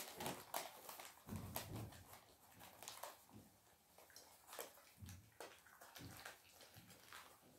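Faint eating sounds of someone biting and chewing a bread roll: small irregular mouth clicks and smacks, with a few soft low thuds.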